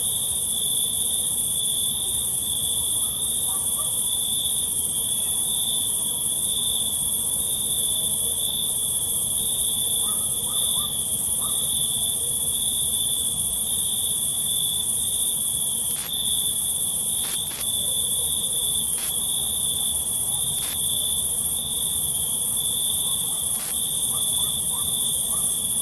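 Crickets trilling in one continuous high, unbroken tone, with a higher insect hiss above it. From about two-thirds of the way in, about six short, louder chirps come at irregular intervals of one to three seconds.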